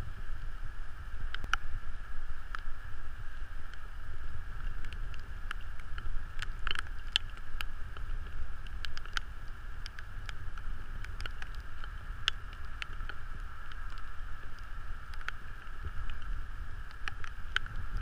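Wind rumbling on the microphone over a steady background hum, with scattered light clicks and taps.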